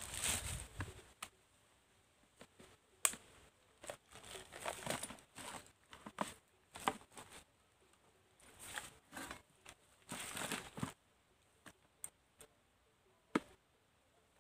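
Intermittent crinkling and rustling in short irregular bursts, with a few sharp clicks, loudest about 3 s in and near the end, as something is handled close to the ground.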